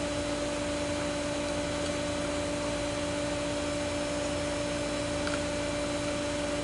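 Steady mechanical hum with a constant low drone and an even hiss underneath, unchanging throughout.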